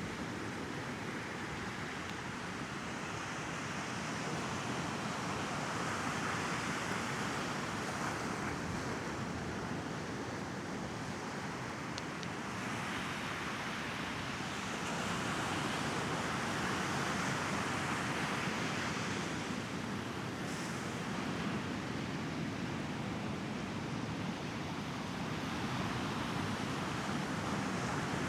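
Sea waves washing onto the shore, the surf swelling and easing every ten seconds or so.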